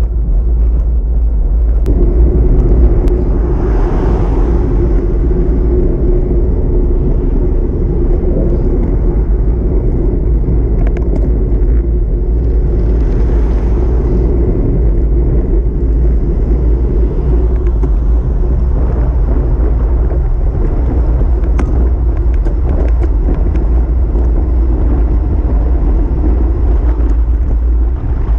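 Wind buffeting the microphone of a camera on a moving bicycle: a loud, steady low rumble. A steady hum joins about two seconds in and fades out around the middle. Faint, steady cricket chirping sits high above it all.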